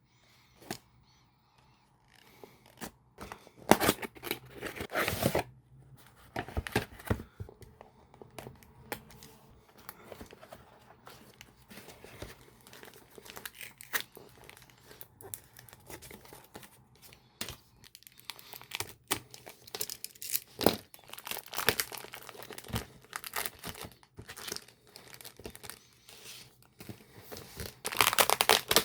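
Beyblade packaging being torn open and handled: tearing and crinkling of the wrapping, with irregular rustles and small clicks, loudest about four seconds in and again near the end.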